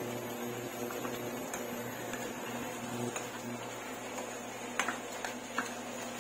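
Steady hum and hiss of a running kitchen appliance or fan. A few light clicks, like a utensil against cookware, come about five seconds in.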